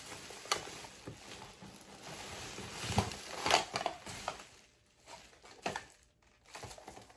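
Packaging being handled: plastic bags crinkling, with scattered sharp clicks and knocks. The loudest handling comes about three seconds in, and it grows sparse and quiet in the last couple of seconds.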